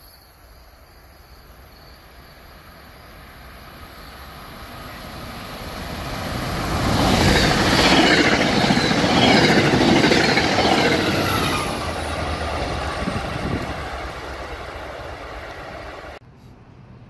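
MBTA commuter rail train passing at speed: the rumble and clatter of its wheels on the rails grows louder, peaks as the coaches go by, then fades, cutting off abruptly near the end.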